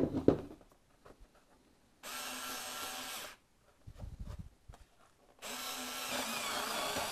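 Parkside PAS D5 4 V cordless screwdriver with its rotary cutting attachment, running twice (about a second, then about two seconds) as it cuts double-thickness card, the small motor going a little under strain. A few clicks at the start and some low handling thumps between the runs.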